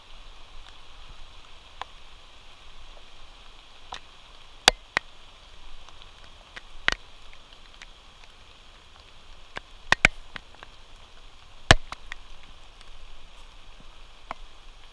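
Steady hiss of rain with a dozen or so sharp clicks and taps at irregular intervals, a few louder than the rest.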